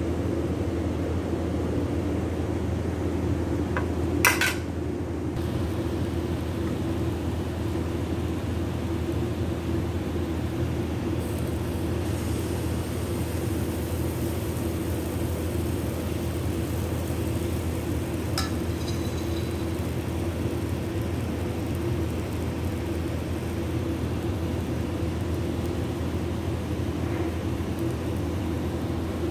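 Pancake batter cooking in a nonstick frying pan, over a steady low hum. There is a sharp clink of kitchenware about four seconds in and a lighter ringing metallic clink near eighteen seconds. From about eleven seconds a faint high hiss sets in as batter sizzles in the pan.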